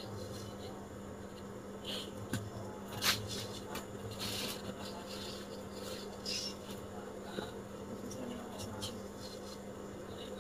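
Steady low hum of room tone with a few soft taps and rustles as paper picture cards on sticks are handled and pressed onto a cardboard display board, the loudest a sharp tap about three seconds in.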